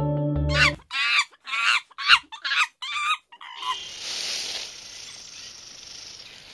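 Background music cuts off, then comes a run of about six short, wavering bird-like calls over about three seconds: the creature call heard from the trees. A low, steady outdoor hiss follows.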